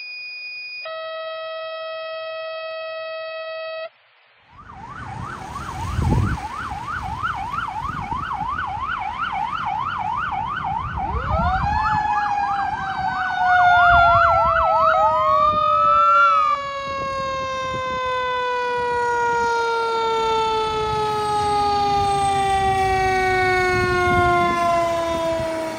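Fire engine's sirens: an electronic siren on a fast yelp, then a mechanical siren winding up about halfway through and slowly winding down, over a low engine rumble. It opens with about four seconds of steady electronic tones before the sirens start.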